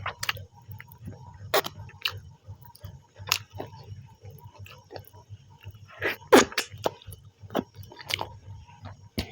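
Close-up eating sounds: a person chewing a mouthful of rice and chicken, with irregular wet smacks and mouth clicks, the loudest a few seconds in.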